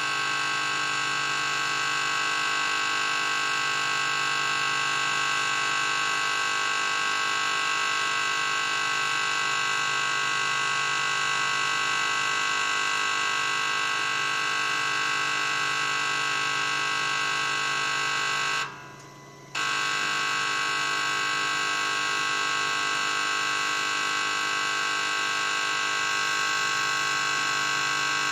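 NTS709 common rail injector test bench running an automatic injector test, a loud steady buzz. It cuts out for under a second about 19 seconds in and comes straight back, the bench moving on between test steps.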